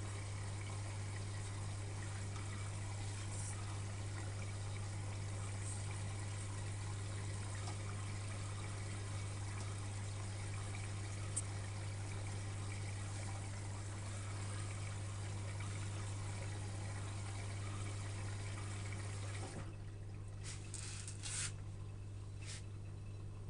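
Electrolux EWS 1045 washing machine with water running through it, a steady rush over a low hum. The water sound stops about twenty seconds in, leaving the hum and a few light clicks.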